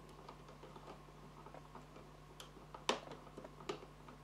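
Faint scattered clicks and ticks of a resistor's wire leads being pushed into a solderless breadboard by hand, the sharpest click about three seconds in.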